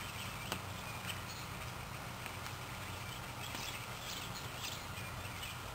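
Quiet outdoor ambience with a steady low hum. A couple of faint knocks come about half a second and a second in as a person climbs onto a wooden rail, and faint scattered chirps are heard throughout.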